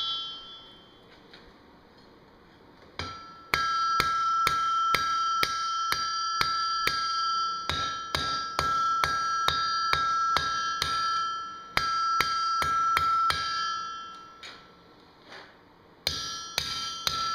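Blacksmith's hammer striking hot steel on an anvil, each blow ringing with a clear high tone, in a steady run of about two to three blows a second. The blows start about three seconds in, stop briefly a little before the end, then pick up again.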